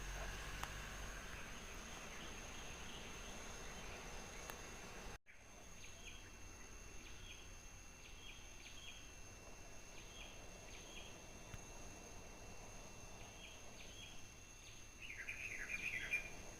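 Quiet outdoor ambience: a steady high hum, with faint short high chirps coming in pairs every second or so, then a quick flurry of chirps near the end.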